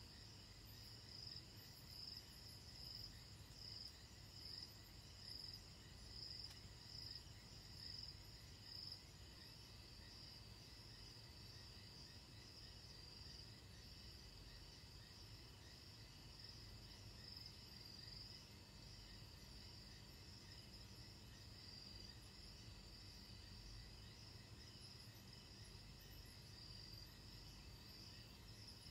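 Faint chirring of night insects, a steady high-pitched trill that pulses about once a second for the first several seconds and then evens out, over a faint low rumble.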